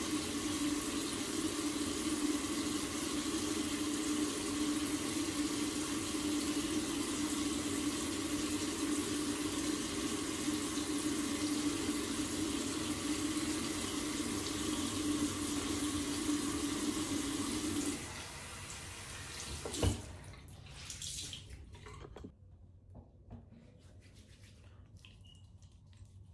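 Bathroom sink tap running steadily, then stopping abruptly about two-thirds of the way through. A single sharp knock follows, then a few small handling sounds and a quiet room.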